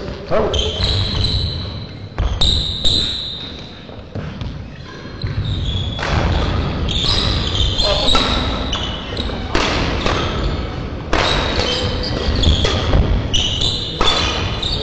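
Badminton rally in a sports hall: sharp racket strikes on the shuttlecock, court shoes squeaking and feet thudding on the court floor, echoing in the hall.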